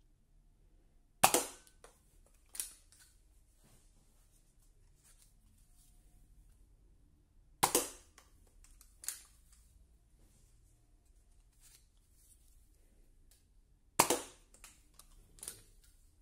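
Nerf N-Strike Nanofire spring-plunger dart blaster fired three times, about six seconds apart. Each shot is a sharp snap, followed about a second and a half later by a softer knock.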